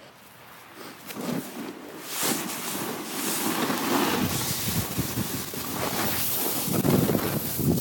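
Snowboard sliding and scraping over groomed snow, with wind buffeting the microphone. Quiet at first, then growing louder over the next few seconds as the rider gets going and picks up speed.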